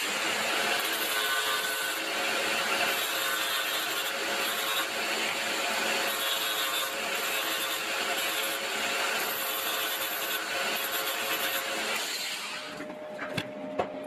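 Angle grinder running, its disc grinding leftover nickel strip off the ends of 18650 lithium-ion cells: a steady motor whine with a high rasping that comes and goes as the cell is pressed to the disc. It stops near the end.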